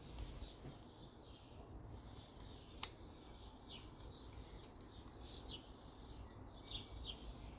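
Faint, repeated short chirps of a small bird over a low background rumble, with a single sharp click about three seconds in.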